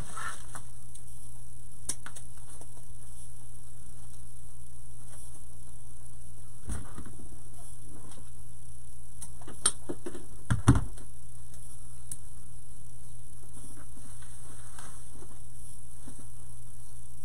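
Steady electrical hum with light clicks and rustles of craft tools and wreath decorations being handled on a worktable. The sharpest knocks come about ten to eleven seconds in.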